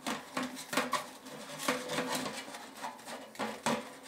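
Thin titanium wood-stove parts clinking and knocking against each other as they are handled and fitted together: about eight sharp metallic knocks, several ringing briefly, with some scraping between them.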